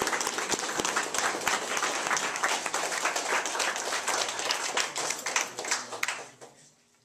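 A roomful of people applauding, a dense patter of many hands clapping that fades out near the end.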